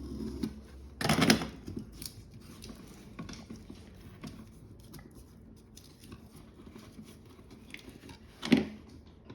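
Electrical wire being stripped with wire strippers: a loud sharp snip-and-scrape about a second in and another near the end, with small clicks and rustles of the wire and tool being handled in between.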